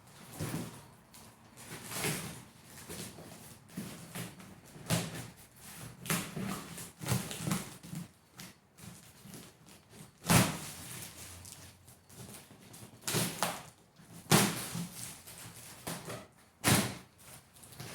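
Large cardboard box of power-rack parts being opened and unpacked: rustling and scraping broken by repeated sharp knocks as pieces are shifted, the loudest about ten, fourteen and seventeen seconds in.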